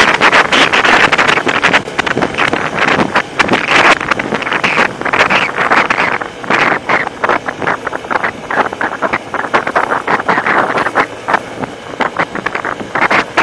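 Off-road motorcycle ridden over a gravel trail, heard from the bike itself: the engine and wind noise swell and ease every second or two as the throttle is worked, with many sharp knocks from the bumpy ride.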